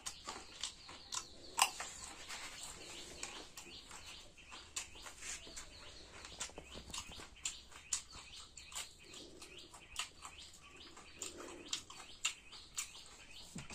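Small, scattered clicks and scrapes of a fork against a plate while someone eats, with birds chirping in the background.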